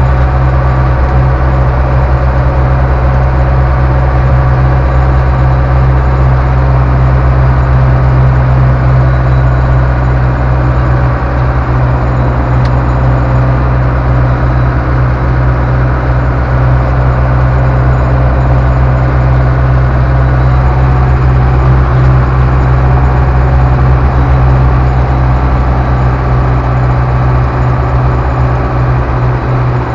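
Ursus C-385 tractor's four-cylinder diesel engine running steadily while driving along a road, heard inside the cab as a loud, even low drone.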